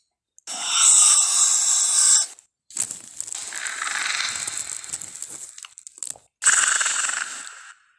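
Film velociraptor sound-effect calls: three harsh, shrill calls with short gaps between them. The first and last are the loudest. The middle one is longer and raspier.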